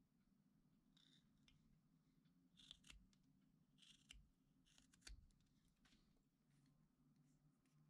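Very faint scraping strokes of a small carving knife paring wood from a hand-held carved figure, about four short cuts with a few light clicks of the blade, over a low steady hum.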